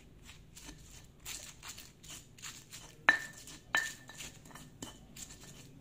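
Stone pestle crushing and grinding bird's eye chillies and garlic in a volcanic stone mortar (ulekan and cobek): a steady run of gritty strokes, about two or three a second, with two sharp stone-on-stone knocks a little past the middle.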